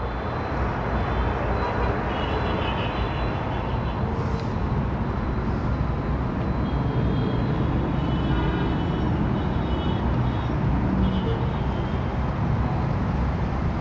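Steady outdoor background rumble like distant street traffic, with faint high chirps now and then.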